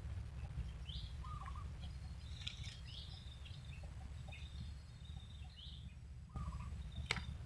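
Scattered short bird chirps over a steady low rumble, with one sharp click near the end.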